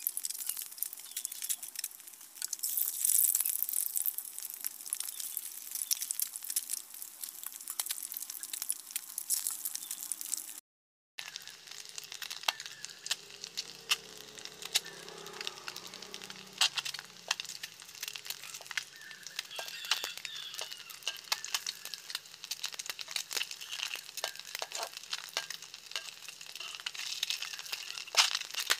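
Halved hard-boiled eggs frying in hot oil in a metal wok: steady sizzling with many small sharp pops. The sound drops out for a split second about eleven seconds in, then the sizzling goes on.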